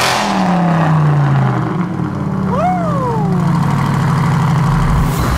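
Chevrolet Corvette C8 Stingray's 6.2-litre V8 running through an ARMYTRIX valvetronic catback exhaust, dropping back from a rev in the first second and a half, then holding a steady idle. A brief thin tone rises and falls about halfway through.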